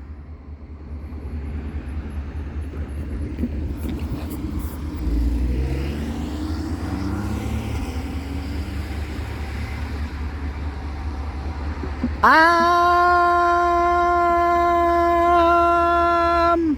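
Low outdoor rumble, then near the end one long, loud blast of a locomotive air horn, bending up as it opens and holding one steady note for about four seconds before cutting off.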